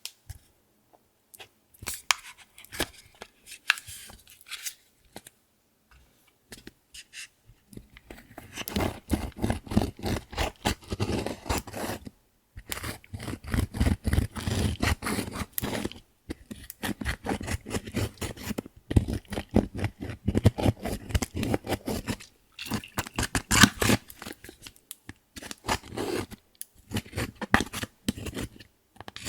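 Clear slime being worked by hand, squished, stretched and folded, giving dense runs of small crackling clicks and pops. The clicks are sparse at first and packed close from about a quarter of the way in, with a few short pauses between bouts.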